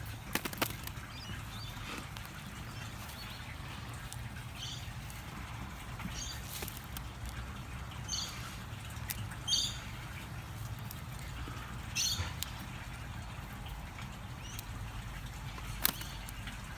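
Hands rummaging and scraping through potting soil as potatoes are pulled out, with a few short high bird chirps now and then and the odd sharp click.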